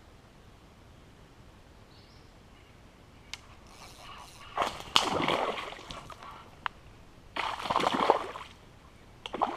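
Water splashing in two loud bursts, one of about two seconds and one of about a second, with a couple of sharp clicks in between.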